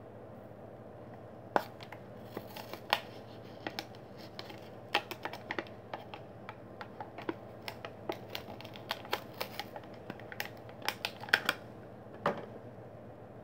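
Plastic blister pack being pulled open by hand: an irregular run of crackles and clicks from the stiff plastic and card, with a few sharper snaps, stopping about a second before the end.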